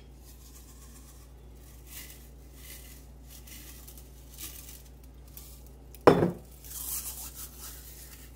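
Dried parsley being shaken out of a glass jar, with a few faint soft rattles, then one sharp knock of the glass jar about six seconds in, followed by a light rustle of dried herbs sprinkled and crumbled between fingers.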